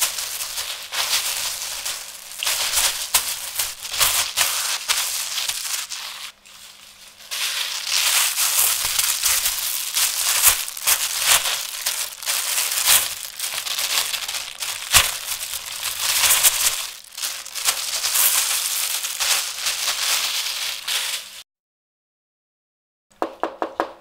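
Plastic bag being crumpled and handled: a dense run of crackling rustles with a short lull about six seconds in, stopping a couple of seconds before the end. A few quick clicks follow near the end.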